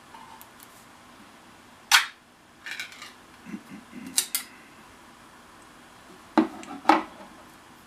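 Pull-tab lid of a food can being popped open and peeled off: a sharp pop about two seconds in, a few smaller clicks and scrapes, a second sharp snap about four seconds in, then two more clicks near the end as the loose lid is handled.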